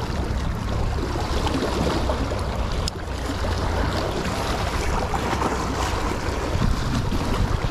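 Wind buffeting the microphone with a steady low rumble, over the wash of sea waves on the shore.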